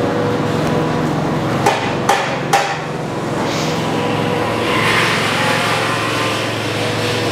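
Steady factory-floor machinery din with a faint steady hum, and three sharp knocks about half a second apart, around two seconds in.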